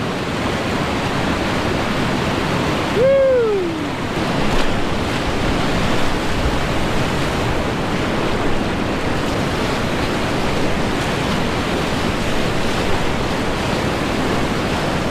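Whitewater rapids rushing steadily and loudly. About three seconds in, a person gives one short shout that falls in pitch.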